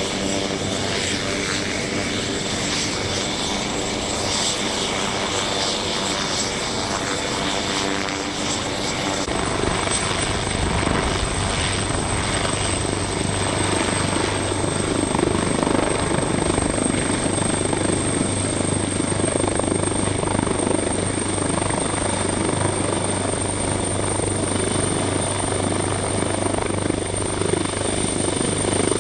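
MH-139A Grey Wolf helicopter, a twin-turboshaft machine, running with its rotors turning: a steady high turbine whine over the rotor's rush. About a third of the way in, the whine steps up in pitch and keeps creeping higher, and the rotor noise grows louder as the helicopter lifts off into a low hover.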